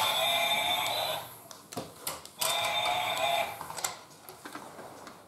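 Electronic sound effect from a battery-powered toy Christmas train: a steady held tone of several notes at once, ending about a second in and sounding again for about a second midway. Sharp plastic clicks of the train cars being handled come between the two tones.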